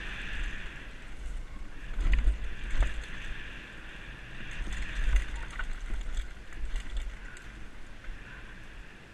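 Canyon Torque FRX freeride mountain bike running fast down a dirt forest trail: a steady rush of wind on the helmet camera's microphone with tyre noise from the dirt, and the bike knocking and rattling over bumps, sharpest about two seconds in and again just before three seconds.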